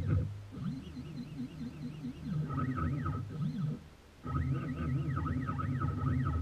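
Small CNC mill running a toolpath in a Delrin block with a 1/8 inch single-flute end mill: the axis stepper motors whine, rising and falling in pitch over and over as the axes speed up, slow down and reverse, over a steady spindle hum. The sound drops away briefly about four seconds in, then resumes.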